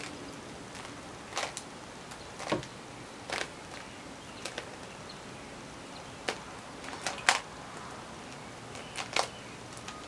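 A Vaseline-lubricated 3x3 Rubik's Cube being turned by hand: irregular plastic clicks as the layers are turned, about a dozen, with the loudest a little after seven and nine seconds in.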